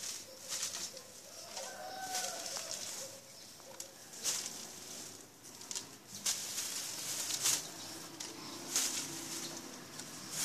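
Short rustling sounds repeating every second or so as food is handed into the monks' alms bowls. A faint rooster crows once about two seconds in.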